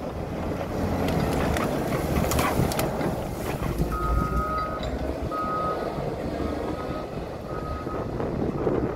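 CAT 140M motor grader's diesel engine running as the machine backs along a dirt road, with its reversing alarm beeping at one steady pitch from about four seconds in. A burst of crackling and knocks comes about two seconds in.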